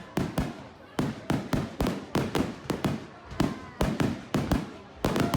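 Fireworks display: a rapid, irregular barrage of exploding shells, about three or four sharp bangs a second, each with a short echoing tail.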